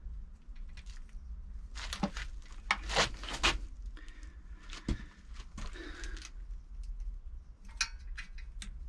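Metal hand tools clicking and knocking on bolts as the right-side engine cover of a motorcycle is unbolted, in irregular short taps, a quick cluster of them about two to three seconds in, with a low steady hum underneath.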